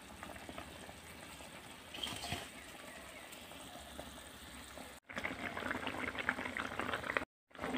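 A watery curry boiling in a pan on the stove, bubbling faintly at first. After a sudden cut about five seconds in, the bubbling is louder and crackly.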